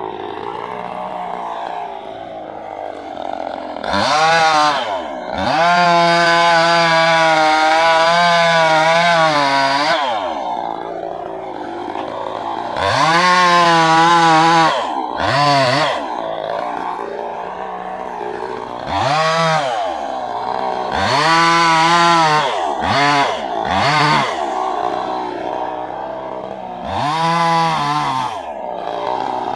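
Chainsaw idling and being revved up again and again, about nine times. Each rev climbs quickly in pitch and drops back to idle, and one is held at high speed for about four seconds, wavering.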